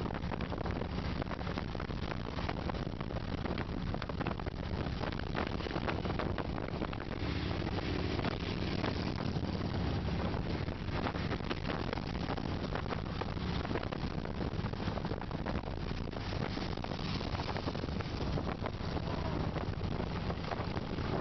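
Motorcycle engines droning steadily at road speed, with wind rushing and buffeting over the microphone.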